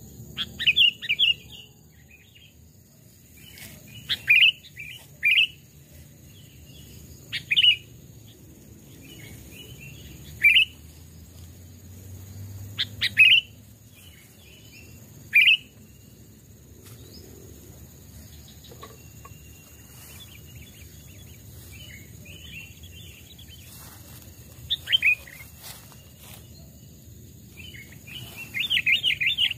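Sooty-headed bulbul (kutilang) calling: short, bright chirping phrases every two to three seconds, a quieter stretch in the middle, then a longer burst of chattering near the end.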